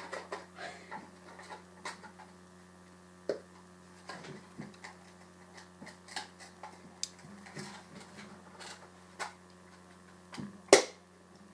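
Scattered light clicks and taps of small objects being handled, over a steady low hum, with one louder knock near the end.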